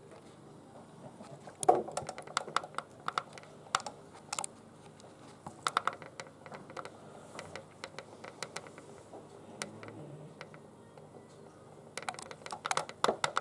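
Irregular light clicks and taps in small clusters, the sharpest about two seconds in and a dense run near the end.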